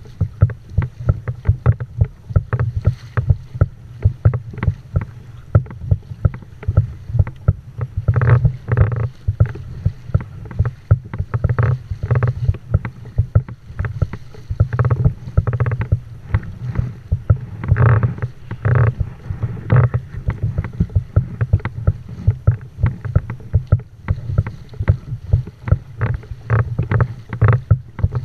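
Fishing kayak's hull moving through choppy sea, a constant quick patter of water knocking and slapping against it, with louder splashes of spray at the bow every few seconds.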